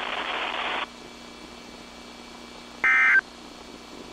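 Radio hiss cuts off about a second in, leaving a quiet carrier. About three seconds in comes a short buzzy burst of Emergency Alert System SAME data tones, and a second burst is just starting at the end: the repeated end-of-message code that closes a weather radio broadcast.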